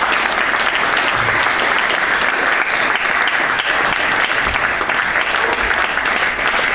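Audience applauding steadily, welcoming a comedian to the stage.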